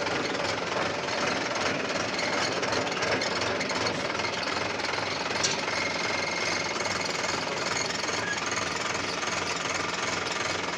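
New Mahindra SP tractor's diesel engine running steadily under way, with a fast, even clatter.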